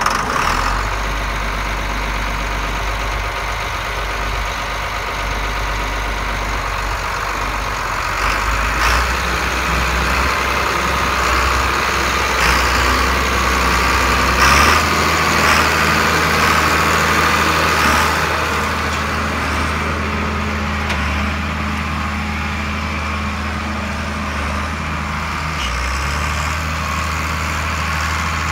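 John Deere 4850's turbocharged six-cylinder diesel running steadily just after catching on start-up. Its engine speed steps up about halfway through and again near the end as the tractor pulls away, with a few short knocks along the way.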